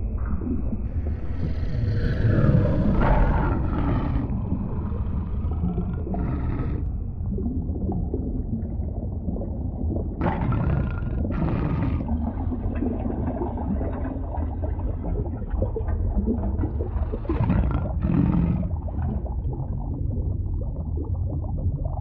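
Animal roars in several outbursts, about one to four seconds, six seconds, ten to twelve seconds and seventeen to nineteen seconds in, over a steady deep underwater rumble.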